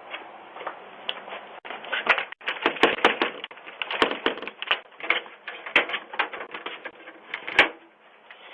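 Rapid, irregular sharp clicks and crackles that come thick and fast from about two seconds in and die away near the end, heard through a doorbell camera's thin, narrow-band audio.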